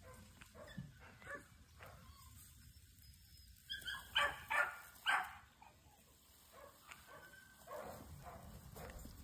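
A puppy yipping: a few short, high calls in quick succession about four to five seconds in, with fainter yips near the end.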